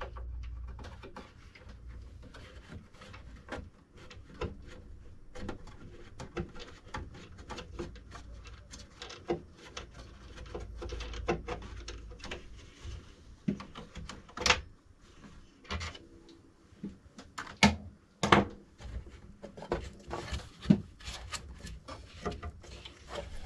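Packaging and parts being handled during a 3D printer unboxing: irregular clicks, knocks and rubbing, with a few sharper knocks in the second half.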